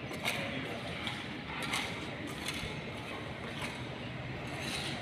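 Footsteps on a hard floor, irregular, about one a second, over a steady background hiss.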